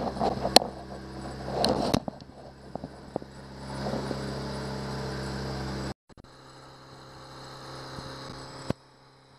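Honda 8 hp four-stroke outboard kicker motor running steadily, pushing the boat at about 4.6 mph, with a few knocks and rattles in the first two seconds. The sound breaks off briefly about six seconds in and comes back quieter.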